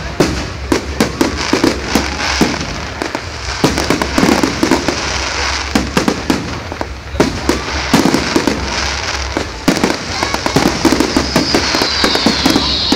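Fireworks bursting overhead in a rapid, irregular barrage of sharp bangs and crackles, with a high falling whistle near the end.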